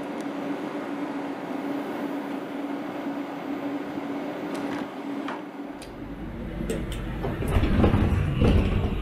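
Doors of a double-deck regional train sliding shut over a steady hum, ending in a couple of clicks about five seconds in. Then another train's passenger door opens, louder, with a busy rush of mechanism noise near the end.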